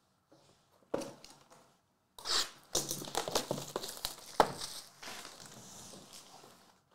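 Plastic shrink wrap being torn and peeled off a sealed trading-card box, crinkling and crackling, with a sharp snap about halfway through. It starts quietly and tails off near the end.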